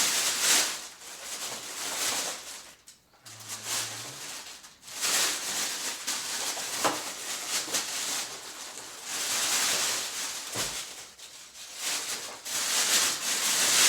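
Plastic packaging rustling and crinkling in irregular bursts as it is handled and pulled off.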